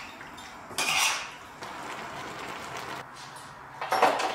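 A utensil stirring and tossing pasta in a stainless steel frying pan, with a scraping rattle about a second in. Near the end there is a sharper clatter with a short ring.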